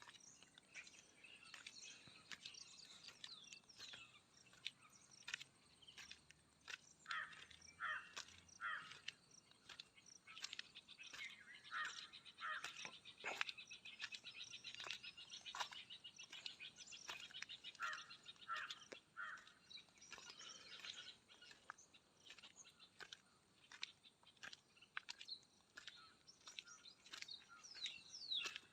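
Faint outdoor ambience of birds chirping and calling, with a rapid trill in the middle and scattered light clicks.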